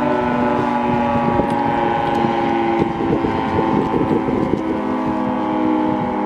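Federal Signal 3T22 rotating dual-tone outdoor warning siren sounding a steady, sustained chord on its full-attack test, its pitch drifting slightly lower. Wind rumbles on the microphone underneath.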